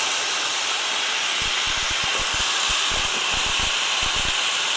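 Cooked beans frying in hot olive oil in a skillet: a steady sizzling hiss. Soft, irregular low thuds join in about a second and a half in.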